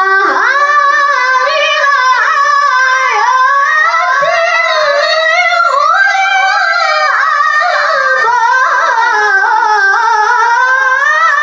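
A single high voice chanting unaccompanied in long, ornamented melodic phrases, the pitch sliding and bending with hardly a pause, in the manner of Quran recitation (tilawah).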